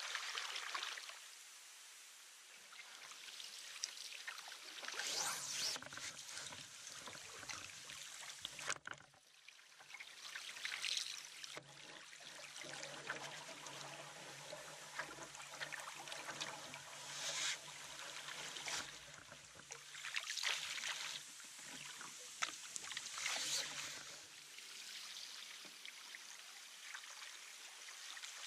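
Canoe paddle strokes in calm river water: water swirling and trickling around the blade and along the hull, rising in surges every few seconds, with a low steady hum beneath through the middle part.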